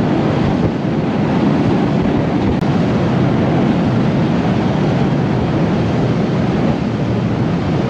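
Boat motor running steadily under way, with water rushing past the hull and wind buffeting the microphone.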